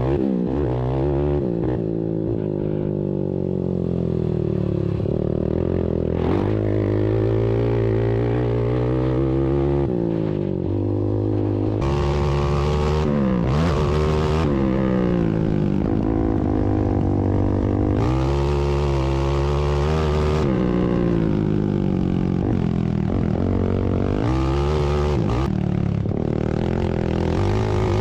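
Several ATV engines racing on a dirt short track at once, each revving up and easing off so that the engine notes rise, fall and cross one another.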